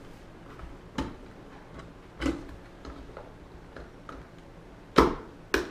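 GoPro camera and its plastic mount being handled and turned upside down: a few light plastic clicks and ticks, then two sharper knocks about five seconds in, half a second apart.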